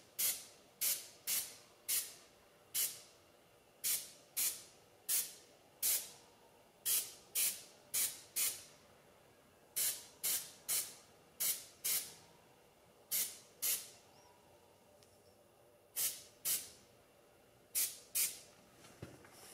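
An airbrush running on about 2 bar of air sprays ceramic coating in short, quick bursts of hiss, roughly two a second, with a pause of a couple of seconds partway through.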